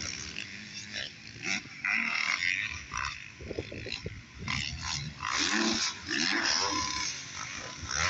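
Motocross dirt bike engines revving and blipping in irregular bursts as riders race the track.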